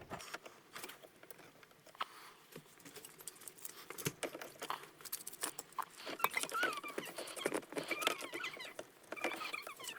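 Scattered small clicks, taps and short squeaks of a shift cable end and its horseshoe retaining clip being handled and fitted in place, busier in the second half.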